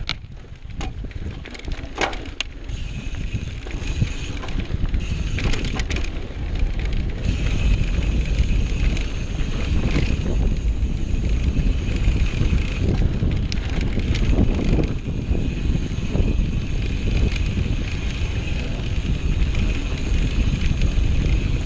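Mountain bike riding fast along a dirt singletrack: tyres rolling over the trail and the bike clicking and rattling over bumps, under heavy wind rumble on the camera microphone that grows louder after a few seconds as speed builds.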